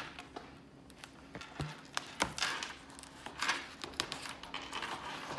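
A hardcover picture book being opened and its pages turned by hand on a wooden table: a few soft taps and brief papery swishes.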